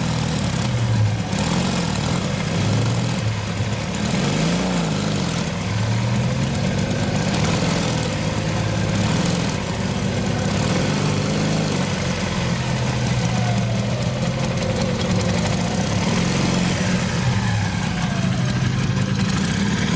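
Heavy motorcycle engine running, its pitch rising and falling in gentle throttle blips as the rider balances the bike on a log seesaw.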